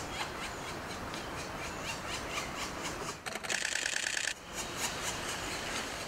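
Black woodpecker nestlings begging inside the nest hole while being fed: about three seconds in, a second-long burst of rapid, buzzy high chatter, over faint repeated high ticking.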